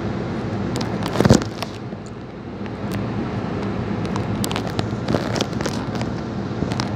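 New Jersey Transit multilevel passenger train at the station platform, a steady rumble and hum with scattered clicks and clanks. A single loud thump comes about a second in.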